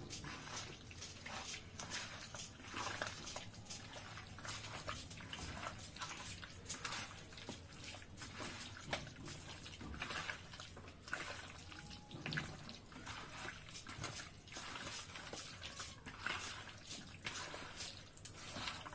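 Wet squelching and squishing as a hand kneads raw chicken pieces through a thick curd-and-spice marinade, with irregular, soft squelches that come and go.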